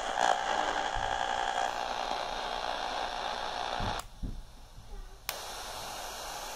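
FM inter-station static hiss from an Aiwa RS-44 pocket radio's small speaker while its tuning wheel is turned between stations, with a few soft handling knocks. About four seconds in, the hiss drops away for about a second, then comes back steadier.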